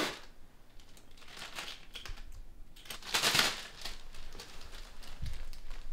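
Clear plastic evidence bag crinkling and rustling as it is handled, with a louder rustle about three seconds in and a soft thump near the end.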